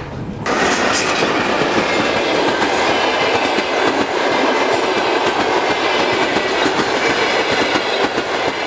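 Train running along the track, loud and steady, its wheels clattering over the rails; it cuts in abruptly about half a second in.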